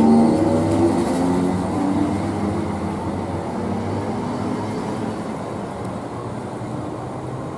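Greater Anglia Class 317 electric multiple unit pulling away from the platform and drawing off down the line. Several humming tones sound at first and die out within the first few seconds, while the rumble of the train fades steadily as it recedes.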